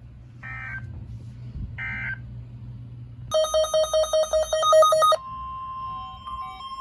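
Three short buzzing digital data bursts of an Emergency Alert System end-of-message code, about a second and a half apart. Then a rapid pulsed electronic beeping, about five pulses a second, and from about five seconds in a steady electronic tone with other beeps stepping on and off over it.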